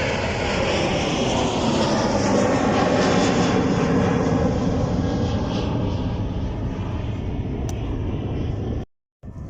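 Airliner's engines as it passes, growing louder to a peak about three seconds in and then slowly fading, with the pitch falling. The sound cuts off abruptly near the end.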